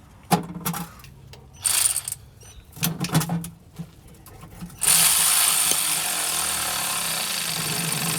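A power tool runs in three short bursts, then steadily for about three seconds near the end, fastening the new starter to the engine.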